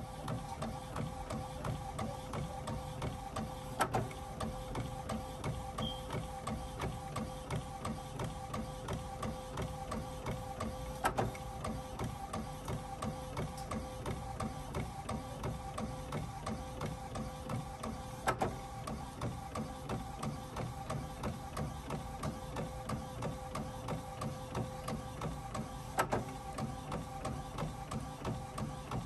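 Epson WorkForce WF-7210 inkjet printer printing: the print-head carriage shuttles back and forth with a steady motor whine that pulses about twice a second. A sharp click comes about every seven seconds.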